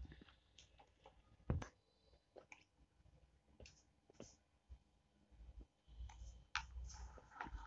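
Faint, scattered clicks and light taps of hands handling a wool-wrapped bangle over a wooden tabletop. The sharpest click comes about one and a half seconds in, with soft rustling near the end.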